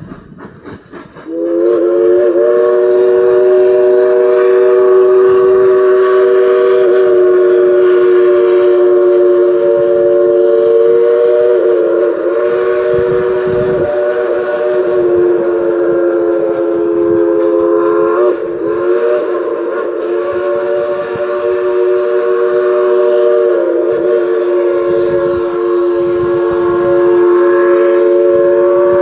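American Steam Gauge and Valve Co. three-chime steam whistle on a steam locomotive, blown in one long chord of three tones that starts about a second in and is held. Its pitch wavers briefly a few times.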